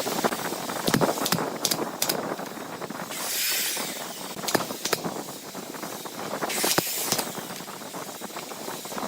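Scattered knocks and clicks of workshop handling, with two short hisses about a second long, one near the middle and one later on.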